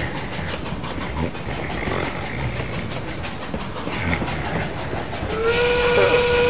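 Steam train running with a rhythmic clatter. About five seconds in, a steady held whistle sounds over it.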